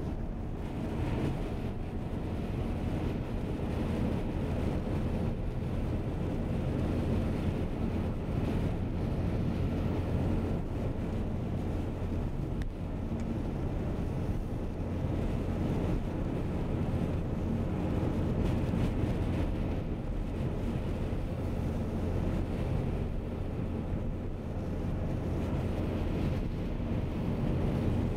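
Steady low rumble of a car driving on a snow-covered road, heard from inside the cabin: engine hum and tyre noise with no change in speed.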